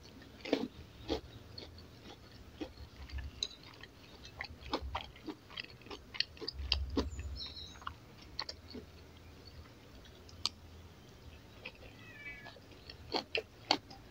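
Someone eating a spoonful of rice with stir-fried napa cabbage: a metal spoon clinks and scrapes on a ceramic plate among quiet, irregular chewing sounds. A few brief high chirps come in the background about halfway through and again near the end.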